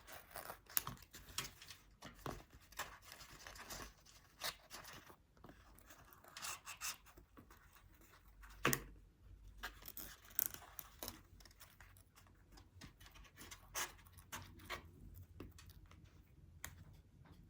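Irregular small taps, scratches and paper rustles of hands working craft pieces: handmade carrot cutouts being placed and stuck onto a paper plate model.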